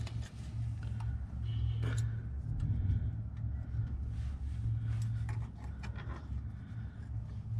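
Needle-nose pliers gripping and bending a steel cotter pin through a ball-joint castle nut, giving a few faint small metal clicks, over a steady low hum.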